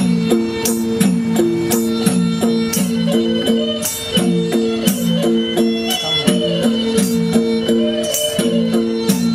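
Nepali folk music: a short melody of held notes repeating over and over, over quick hand-drum strokes and tambourine jingles.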